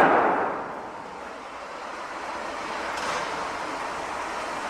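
City construction-site background noise: a sudden loud burst at the start that dies away over about a second, then a steady noisy wash with a smaller swell about three seconds in.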